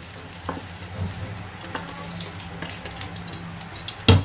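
Soft, steady hiss from still-hot fried chillies and onion being tipped from a wok into a bowl, with a few light clicks of the utensil. One loud knock on the pan near the end.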